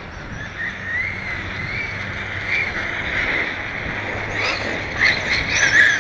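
Traxxas E-Revo RC truck's Castle brushless electric motor whining, its pitch rising and falling with the throttle over the hiss of tyres on asphalt, with louder, sharper bursts near the end.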